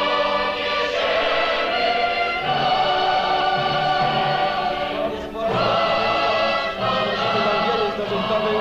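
Music: a choir singing long, sustained notes with instrumental backing. It drops briefly about five seconds in, then carries on.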